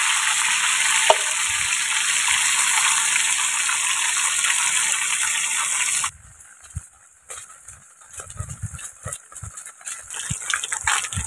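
Shrimp frying in a pan on a portable gas stove, a loud steady sizzle that cuts off suddenly about six seconds in. After that, quieter scattered knocks and scrapes of a spoon stirring the pan.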